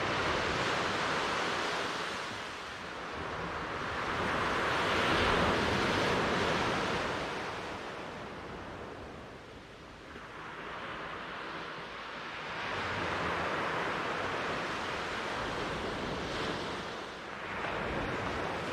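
Ocean surf: waves breaking and washing in, swelling and ebbing in about four slow surges, with a quieter lull in the middle.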